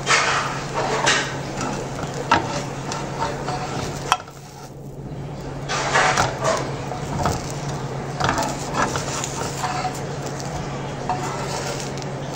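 Metal spatula scraping and clicking against a hot dosa tawa in irregular bursts as a dosa is loosened and folded, with a sharp click a little after four seconds in. A steady low hum runs underneath.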